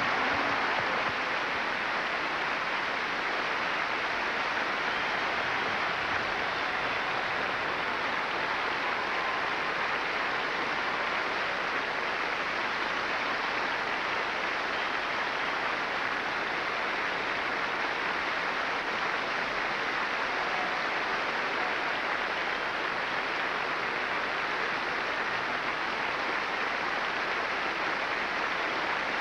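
Large audience in a concert hall applauding, a dense, steady wash of clapping with no music or voice over it.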